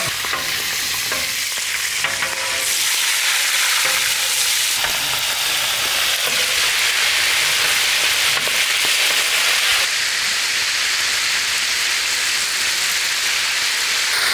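Fish pieces frying in hot oil on a large flat iron griddle, a steady loud sizzle. A metal spatula and slotted skimmer scrape and turn the pieces, with light clicks of metal on the griddle in the first few seconds.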